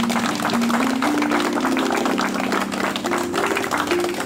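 A small crowd applauding, with background music playing a slow melody underneath.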